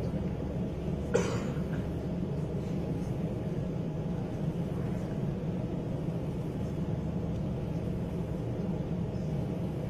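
Steady low rumble of a large exhibition hall's room noise, with one short sharp sound about a second in.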